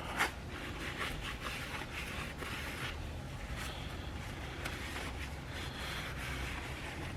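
Hand wiping the mating surface of a differential cover clean of oil before sealing: a run of soft, quick rubbing strokes over a steady low hum.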